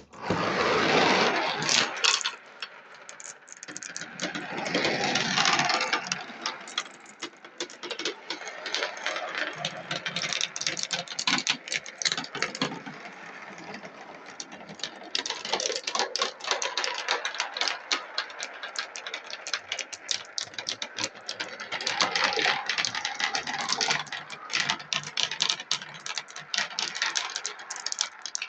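A pack of 16 mm marbles rolling and clattering down a marble-run track: a dense, uneven rattle of clicks that starts suddenly, loudest in the first two seconds and swelling again about five and twenty-two seconds in.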